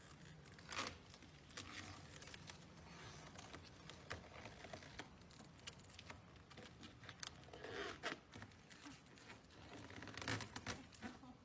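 Vinyl wrap film being peeled off a car's painted door: a faint crackling, tearing sound with short louder rips about a second in, around eight seconds and near the end.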